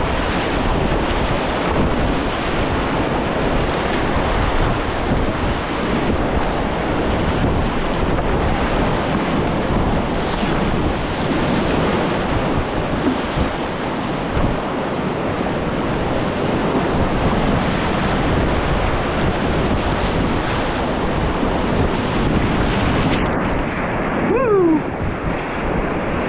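Whitewater rapids rushing loudly and steadily, with wind buffeting the microphone. About three seconds before the end the sound turns muffled and dull, and a short tone slides down in pitch.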